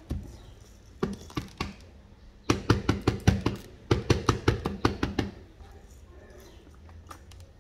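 Glass pepper grinder worked over a plastic cutting board, with whole peppercorns coming out onto the board. It gives a few sharp clicks about a second in, then a quick run of clicks and rattles lasting nearly three seconds.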